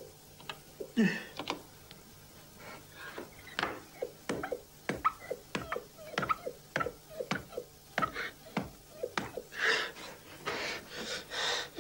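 A non-speaking autistic young man making irregular clicking and smacking mouth noises, with breathy, panting vocal sounds near the end.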